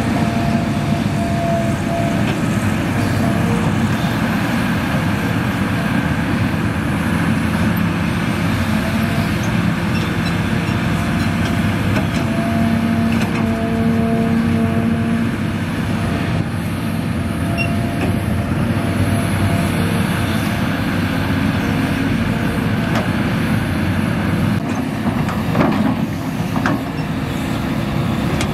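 Hitachi Zaxis 350H excavator's diesel engine running steadily under digging load, with steady tones that swell for a few seconds at a time and then fade.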